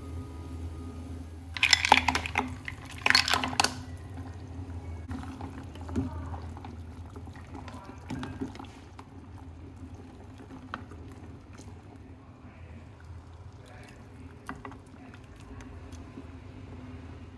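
A pot of tom yam broth boiling, with a fine bubbling crackle over a steady low hum. It is broken by two loud splashing bursts about two and three seconds in, followed by scattered small clicks.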